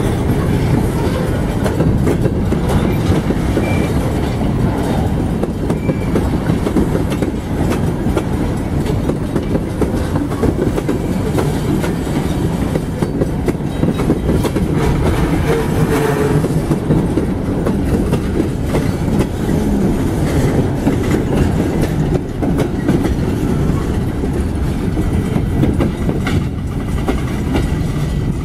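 Freight train cars (covered hoppers, tank cars and boxcars) rolling past, a steady, loud rumble of steel wheels on the rails.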